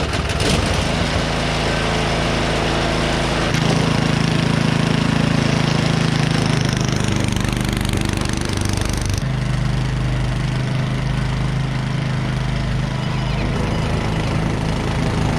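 Small gasoline engine of a snowblower running steadily under load, with abrupt shifts in pitch and level about 3.5 s and 9 s in.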